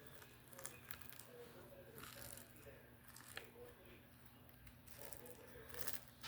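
Faint crunching and crackling of small beads mixed into butter slime as it is squished and pressed, with scattered small clicks over a steady low hum.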